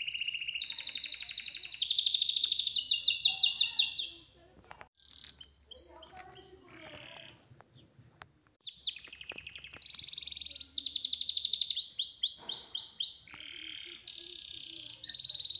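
Songbird singing in rapid high trills, the notes jumping abruptly from one pitch to another. The song pauses for about four seconds in the middle, leaving faint clicks, then starts again.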